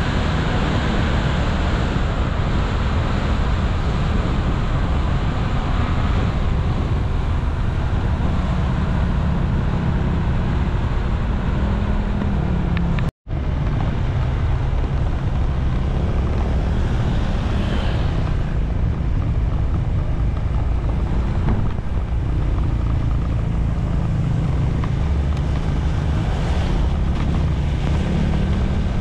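Wind rushing over the camera microphone while riding a Honda ADV160 scooter, with its single-cylinder engine and tyre noise running steadily underneath. The sound cuts out for an instant about thirteen seconds in.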